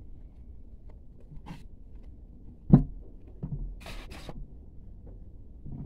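Hands kneading soft cookie dough in a floured bowl: quiet pressing and rubbing sounds, with short hisses and one sharp thump a little before the middle.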